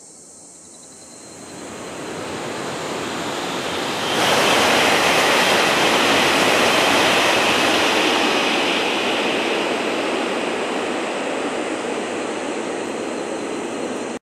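E5 series Shinkansen passing at high speed between tunnels: a rushing noise that builds, jumps up suddenly about four seconds in, then fades away slowly.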